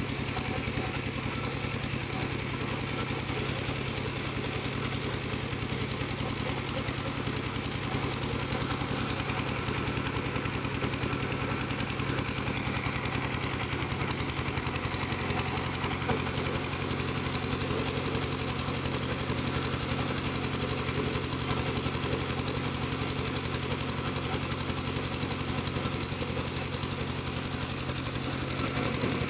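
Engine of a piling machine running steadily, with a rapid even chugging.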